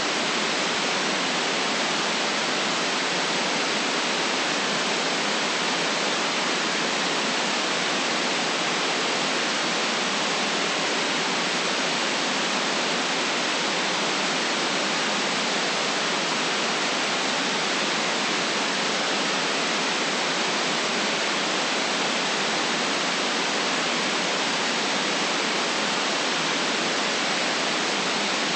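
Steady white noise for sleep: an even, unchanging hiss with no rhythm or events, its deepest and highest parts cut away.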